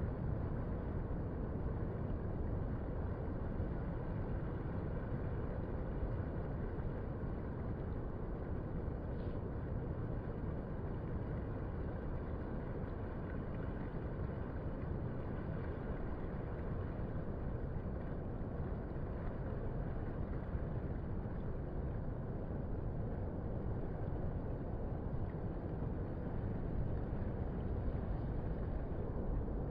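Distant ocean surf on a low-tide beach: a steady, low rushing wash of small waves breaking offshore, with no separate wave crashes standing out.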